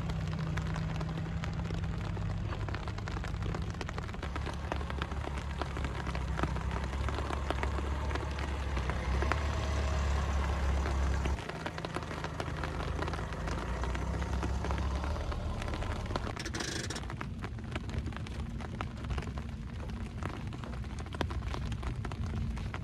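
Steady rain falling, heard as an even hiss full of separate drop hits, over a low rumble that drops away suddenly about eleven seconds in.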